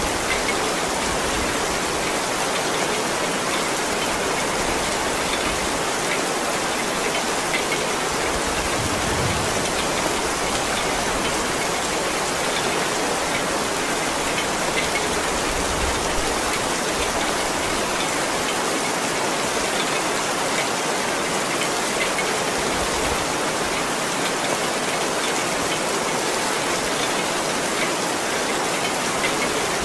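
Heavy rain falling steadily: a dense, even hiss with scattered small drop splashes.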